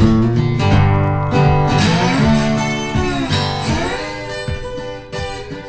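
Outro background music: strummed acoustic guitar, fading out toward the end.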